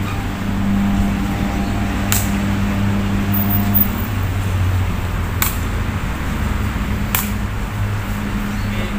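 Sharp cracks of a sepak takraw ball being kicked, three times, spaced a few seconds apart. Under them runs a steady low hum.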